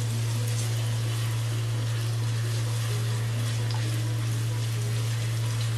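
Olive oil sizzling gently around sliced garlic and Iberian cured ham in a terracotta cazuela over low heat, as the ham's fat slowly renders out. A steady low hum runs underneath.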